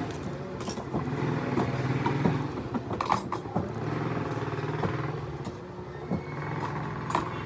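An engine running, its low drone swelling and fading, with scattered light clicks and knocks.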